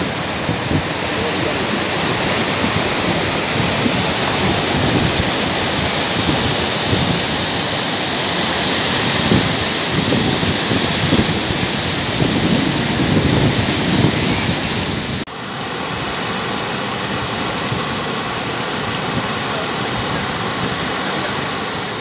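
Waterfall: water rushing steadily down a rock chute and splashing into a plunge pool, with an uneven low rumble in the first half. About fifteen seconds in the sound dips briefly at a cut, then runs on steadier.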